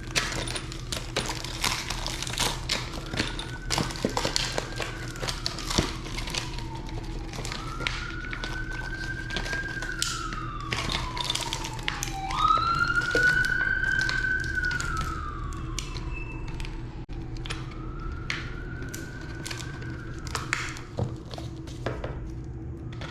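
Emergency vehicle siren in a slow wail, rising and falling about four times, over repeated small metallic clicks and taps of a hex key tightening bolts on a flat-pack chair.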